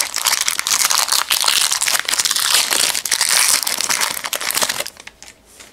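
Foil wrapper of a trading-card pack crinkling loudly as it is torn open by hand, a dense crackle that dies away about five seconds in.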